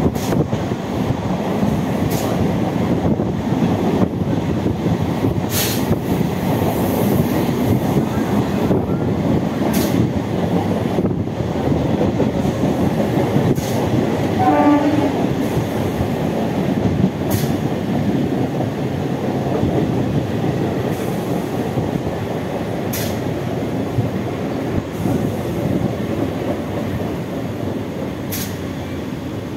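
Wheels of an ICF passenger coach running over the track, heard from the open coach doorway: a steady loud rumble with occasional sharp clicks from rail joints, easing off slightly toward the end as the train slows.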